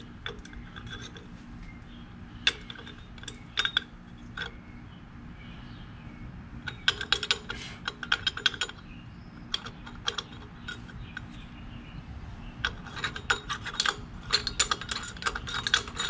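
Sharp metallic clicks and clinks of hand tools on a small-engine carburetor as the float-bowl nut is worked loose to drain its fuel. There are a few scattered clicks, then two runs of rapid clicking, the second near the end, over a steady low hum.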